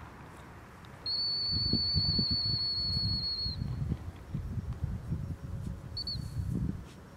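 Dog-training whistle: one long, steady, high blast lasting about two and a half seconds, then a short pip near the end.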